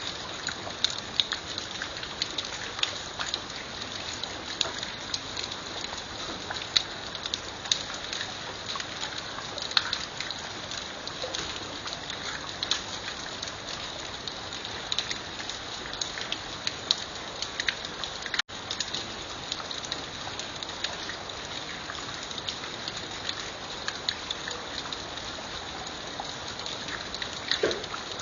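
Steady rain falling, a constant hiss with many separate drops ticking sharply on a surface. The sound cuts out for a split second about two-thirds of the way through.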